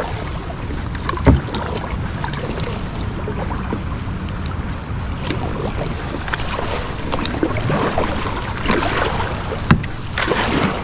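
Kayak paddle strokes in flowing river water, the splashes swelling louder near the end, over a steady low rumble of wind on the microphone. A sharp knock about a second in.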